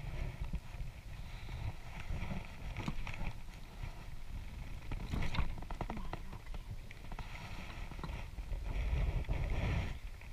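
Low, uneven rumble of wind and clothing rubbing against a chest-worn camera's microphone, with a few light knocks and scuffs.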